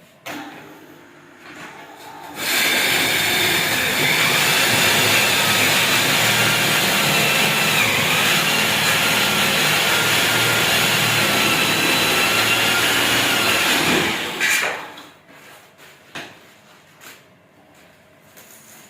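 Handheld electric power drill running steadily for about eleven seconds, its pitch dipping briefly midway as it takes load, then stopping.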